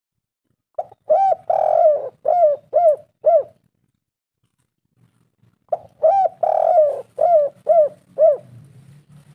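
Spotted dove singing: two phrases of cooing, each a short lead note, one longer rolling coo, then a run of quick arched coos. One phrase comes about a second in and the other just after halfway.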